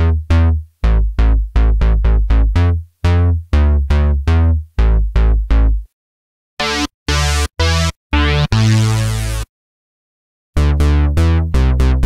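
Roland JUNO-60 software synthesizer playing bass presets. First a repeated plucked bass line of short, quickly decaying notes, about three a second. After a short pause come a few brighter bass notes and one longer held note, and then, after a second of silence, a new bass run starts near the end.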